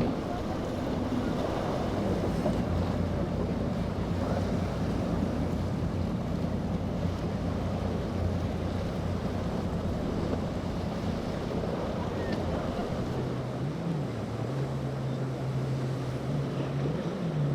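Motorboat engines running over the wash of waves, with wind buffeting the microphone. About thirteen seconds in, the engine note shifts to a slightly higher, steadier hum.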